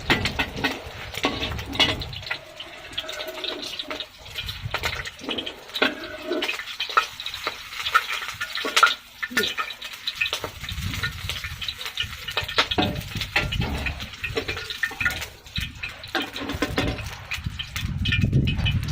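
Eggs frying in hot oil in a wok, a steady crackling sizzle with frequent clicks and clinks of a metal spatula.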